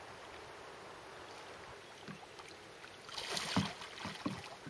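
Canoe paddle stroking and splashing in calm water. About three seconds in there is a louder splash, followed by a few short, dull knocks.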